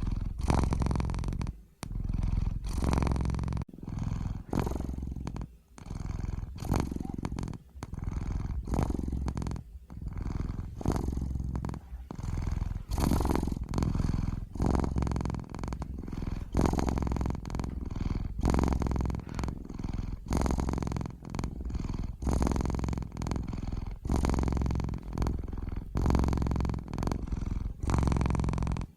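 Domestic cat purring continuously, its purr swelling and dipping with each breath in and out, about once a second.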